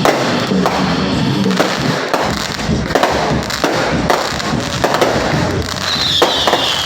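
Aerial fireworks bursting in a rapid series of bangs, roughly one to two a second, with a high falling whistle near the end.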